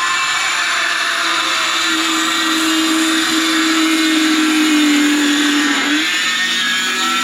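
Handheld power cutting tool running steadily with a high whine while cutting out a kitchen sink, its pitch sagging slightly about five to six seconds in as it bites into the material.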